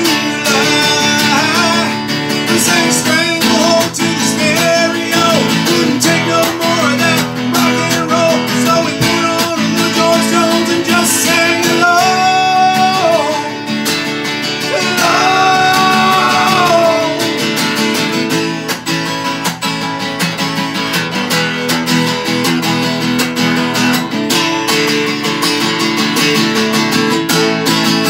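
Acoustic guitar strummed steadily, with a few long held notes near the middle.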